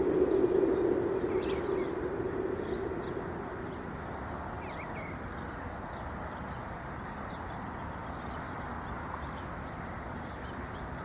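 Outdoor wind noise with small birds chirping in short, scattered calls. A louder low rushing fades out about three to four seconds in.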